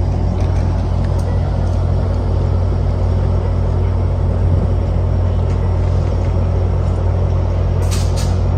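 F59PHI diesel-electric locomotive running with a steady low drone while its train stands at the platform, with a brief high-pitched sound near the end.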